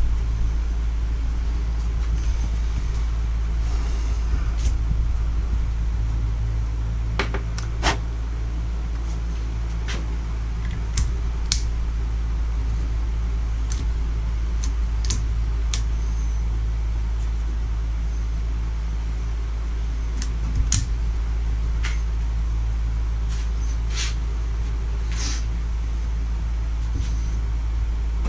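Electric pedestal fan running with a steady low hum, and scattered light clicks and taps as seals are worked onto a steel hydraulic ram gland held in a bench vice.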